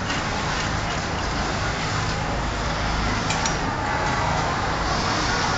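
Industrial sewing machines running in a workroom: a steady hum and whir, with a couple of faint clicks midway.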